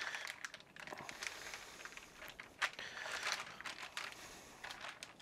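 Thin plastic vacuum-pack bag crinkling and rustling as a raw pork roast is worked out of it by hand, with a sharper crackle about two and a half seconds in.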